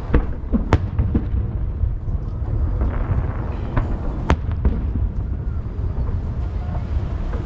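Aerial fireworks bursting over the sea: a handful of sharp bangs, the loudest about four seconds in, over a continuous low rumble of booms echoing back from the hills that ring the bay.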